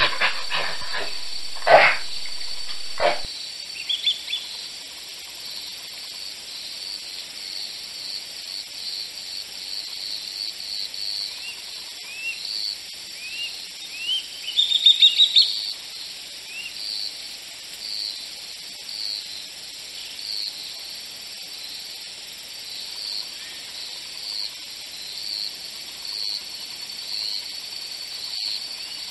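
Natural bush ambience: a steady high-pitched insect hiss with repeated short bird chirps throughout, and a quick loud run of chirps about fifteen seconds in. In the first three seconds a few loud, sharp short sounds stand out.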